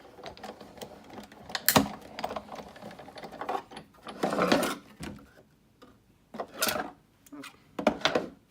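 Hand-cranked Big Shot die-cutting machine feeding a die and plate sandwich through its rollers, with a rumbling run about four seconds in, and sharp clicks and clacks of the cutting plates being handled.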